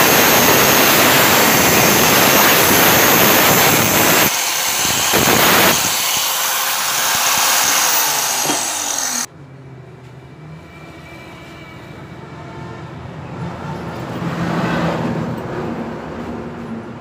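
Angle grinder with an abrasive cutting disc cutting through steel flat bar, running loudly for about nine seconds, its pitch falling as it winds down. Then the sound cuts off suddenly, leaving quieter background noise.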